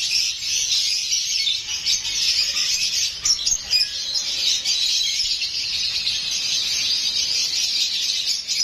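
Many caged parrots chirping and chattering together in a dense, unbroken chorus of high calls.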